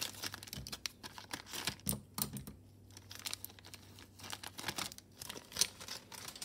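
Plastic crinkling and rustling with light, irregular clicks and taps as a pair of acrylic hoop earrings and their plastic number tag are picked up and put into a small bag.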